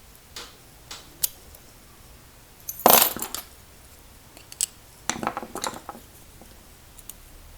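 Small metal padlock parts and keys clinking and clattering on a hard surface: a few light clicks, a louder clatter about three seconds in, and another run of clinks around five seconds.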